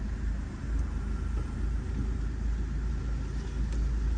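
Off-road vehicle engine running, a steady low rumble.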